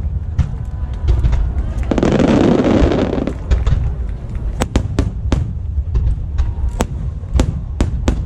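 Fireworks display: many sharp bangs and cracks in quick succession over a continuous low rumble, with a dense burst of crackling about two seconds in that lasts just over a second.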